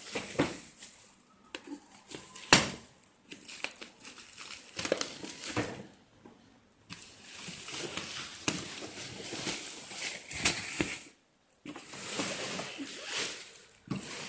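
Packaging wrap crinkling, rustling and tearing as it is pulled off a new soft-sided suitcase, in irregular bursts with a sharp snap about two and a half seconds in and short lulls between handfuls.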